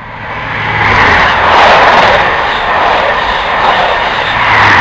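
High Speed Train (InterCity 125) passing non-stop at speed: the roar of the leading Class 43 diesel power car and its wheels builds to a peak about a second in, then the coaches rush past, with a second surge near the end as the rear power car goes by.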